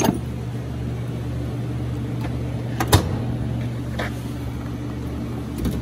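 Steel toolbox drawers being shut and pulled open: a few sharp metal clunks, the loudest about three seconds in, over a steady low mechanical hum.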